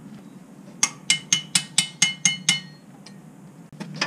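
Eight quick metallic clinks, about four a second, each ringing briefly: a metal hand tool tapping against metal at a tractor's engine sump during an oil change.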